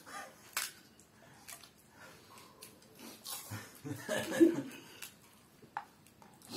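Men eating golgappe, crisp puris filled with spiced water: quiet crunching and scattered small clicks of hands on plates, with a short laugh about four seconds in, the loudest moment.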